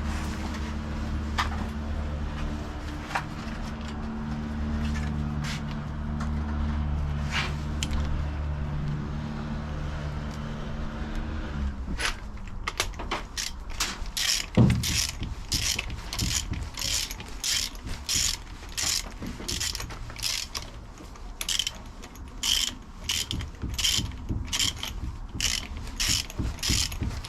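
A steady low drone stops about twelve seconds in. Then a ratchet wrench clicks back and forth, about two strokes a second, as spark plugs are screwed into a classic Mini's engine.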